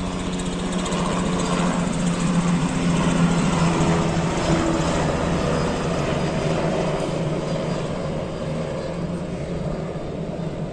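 Small helicopter flying past and climbing away, its rotor and engine running steadily, loudest about three seconds in and then slowly fading.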